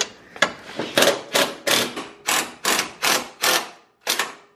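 Short, rapid squirts from an aerosol can of penetrating lubricant sprayed onto seized bumper bolts to loosen them, about three hissing bursts a second, with a brief pause near the end.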